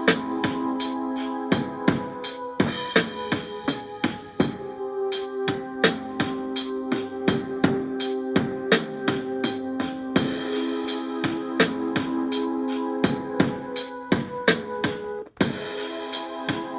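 A beat made from Akai MPC Live stock sounds, playing back: a steady pattern of drum hits over held keyboard notes. It drops out for an instant near the end.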